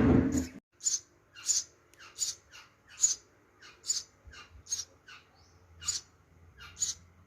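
Young sparrow giving short, high chirps over and over, about one and a half a second, as it waits to be hand-fed: food-begging calls. A short low noise sounds at the very start.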